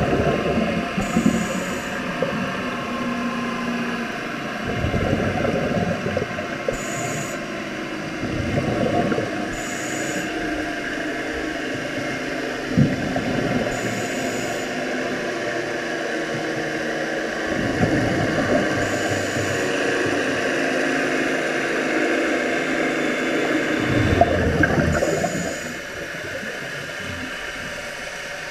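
Scuba diver breathing through a regulator underwater: a rumbling rush of exhaled bubbles every five seconds or so, each breath in marked by a short hiss, over a steady underwater hiss and hum.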